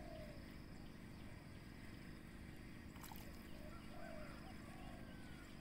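Faint outdoor ambience: a steady low rumble with a few soft chirping bird calls, and one sharp click about three seconds in.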